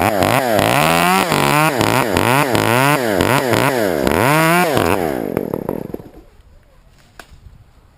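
Two-stroke chainsaw revving, its pitch rising and falling about twice a second, then dying away about five to six seconds in.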